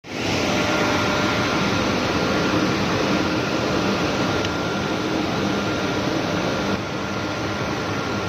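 Drilling rig drawworks driven by VFD electric motors, running with a steady machinery drone and a thin high whine over it. The owner reports the sound as abnormal, with its cause not yet found. The level drops a little about seven seconds in.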